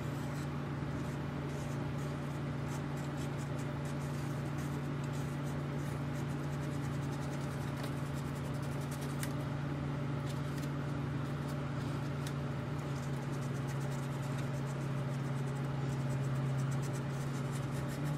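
Single-edge razor blade lightly scraping leftover glue residue off a glass LCD lens, many quick short scratching strokes, over a steady low hum.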